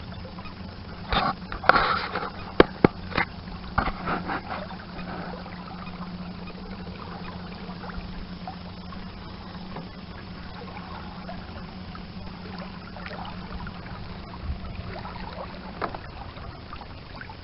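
A small fishing boat on the water: a cluster of sharp knocks and clatter against the boat in the first few seconds, then water lapping and a steady low hum that stops near the end.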